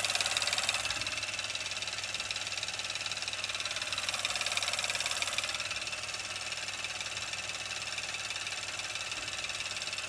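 LEGO motor-driven jitter clicker hammering a computer mouse button at about 18 clicks a second: a fast, steady stream of mouse clicks over the running motor.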